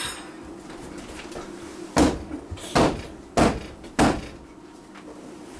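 Wooden loaf mold filled with freshly poured cold-process soap batter tapped down on a hard surface: four thumps a little under a second apart, starting about two seconds in. Tapping down settles the batter and knocks out air bubbles.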